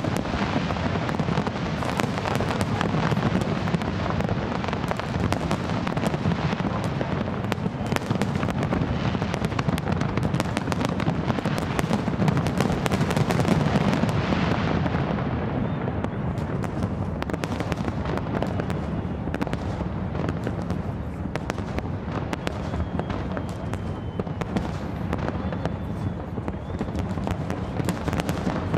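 A large aerial fireworks display: a dense, continuous barrage of shell bursts, with constant crackling over a heavy low rumble of bangs. About halfway through, the high crackle thins out, leaving more separate pops and bangs.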